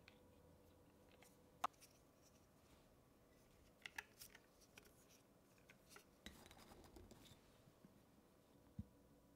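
Faint handling noises: scattered light clicks and taps of a plastic mason jar band and silicone pickle pipe lid handled over a glass jar, the sharpest click about a second and a half in and a low knock near the end.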